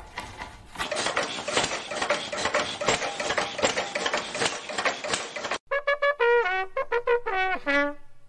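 Film projector clattering, a fast run of clicks that cuts off about five and a half seconds in, followed by a short brass fanfare of a few notes stepping down in pitch.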